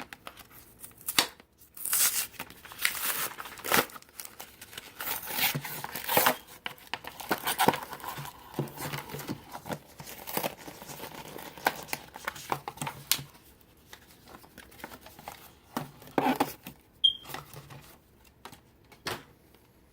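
Plastic and cardboard packaging of a Pokémon card blister pack being torn and crinkled open by hand: irregular rips and crackles, busiest in the first half and thinning out near the end.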